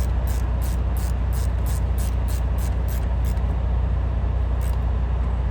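An engine running steadily, a low drone with a rapid ticking about three times a second that thins out about three and a half seconds in.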